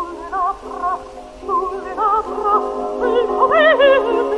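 A woman's operatic voice, high and with a quick vibrato, singing a phrase over sustained accompaniment in an old recording with hiss and low hum underneath.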